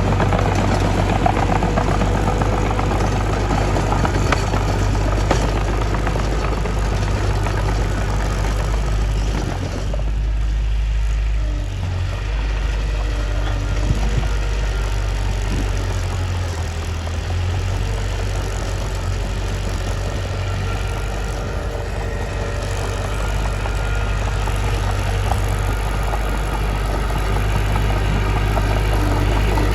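Mitsubishi bulldozer's diesel engine running steadily with a deep low hum. It eases off and sounds softer about a third of the way in, then builds back up toward the end.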